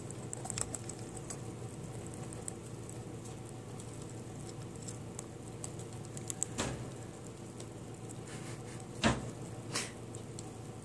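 Pet rat moving about its cage with an egg treat: faint scratching and small clicks over a steady low hum, with a few sharper knocks, the loudest about nine seconds in.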